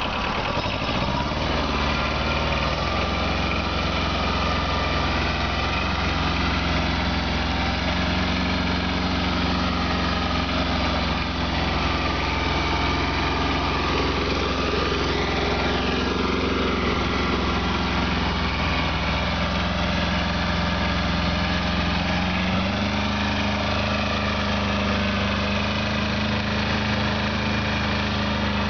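Kubota B1220 compact tractor's three-cylinder diesel engine running steadily while pulling a single-furrow plough through soil. The engine note steps up slightly about 23 seconds in.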